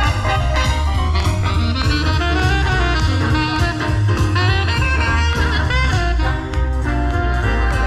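Swing music with brass and drums, played loud over outdoor PA horn speakers, with a steady beat.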